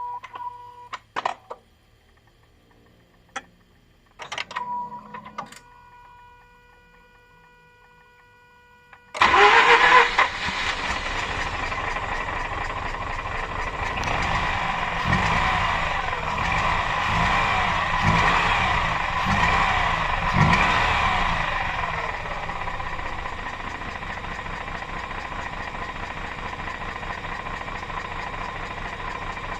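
A few clicks and steady electronic chime-like tones, then about nine seconds in the Mazda RX-8's two-rotor Renesis rotary engine starts. It is revved several times and then settles to a steady idle. The owner is unsure whether the noise it makes is a vacuum leak or a broken apex seal.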